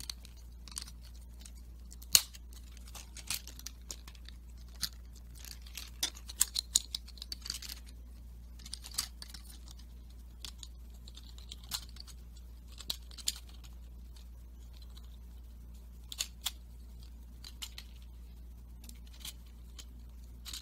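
Scattered plastic clicks and clacks of Lego Technic parts and small flanged train wheels being handled and pressed together, fitting axles into a bogie frame, irregular and sharpest about two seconds in, over a steady low hum.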